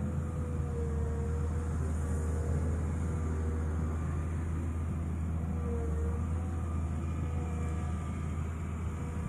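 Volvo EW160 wheeled excavator's diesel engine running with a steady low drone, and a wavering hydraulic whine that comes and goes as the boom is raised and swung out with the mowing bucket.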